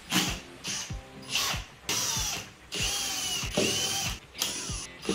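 Cordless driver spinning screws out of a metal equipment cover in several short bursts, its motor whine rising and falling as each burst starts and stops.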